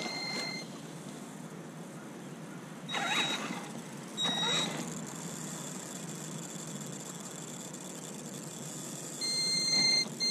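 Electric RC monster truck on gravel: two short bursts of motor whine with tyre crunch about three and four seconds in, then a steady high-pitched electronic whine from the motor and speed controller about nine seconds in while the truck stands still.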